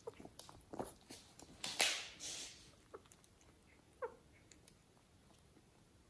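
Kittens scuffling and moving about, making soft rustles and taps that are loudest about two seconds in, then a single brief, high kitten mew that falls in pitch about four seconds in.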